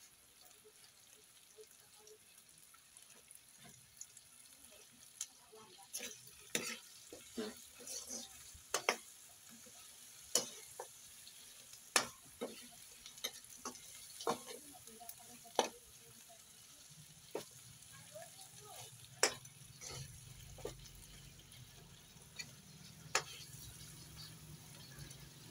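Metal ladle stirring meat and vegetables in a steel wok over a steady frying sizzle, with sharp irregular clinks and scrapes of the ladle against the pan from a few seconds in until near the end.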